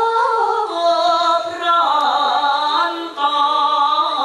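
A woman singing a slow Javanese song line into a microphone, holding long notes with a wavering vibrato and ornamented turns between them.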